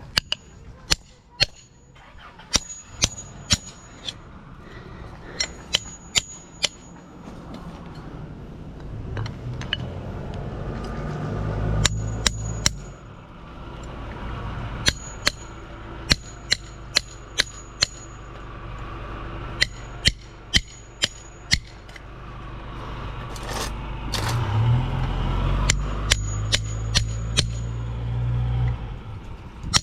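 Hammer blows on a metal electric motor housing, sharp ringing strikes in quick clusters of two to five. A low rumble swells and fades twice, around the middle and again near the end.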